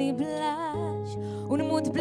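A woman singing with vibrato over an acoustic guitar accompaniment. The guitar's bass note changes about three-quarters of a second in.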